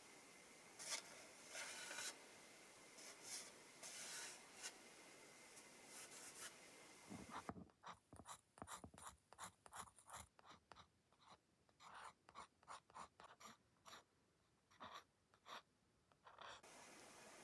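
Faint scratching of a pencil sketching on paper, then, from about seven seconds in, the quicker, separate little scratches of a steel-nibbed fountain pen drawing short ink strokes on textured paper.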